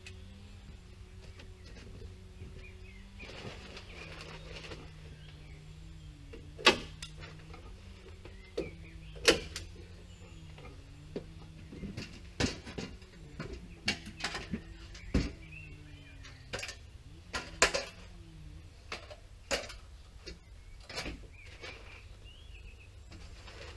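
Staple gun driving staples through a plastic membrane into timber framing: a dozen or so sharp snaps at irregular intervals, starting about six seconds in, with rustling of the membrane sheet before them.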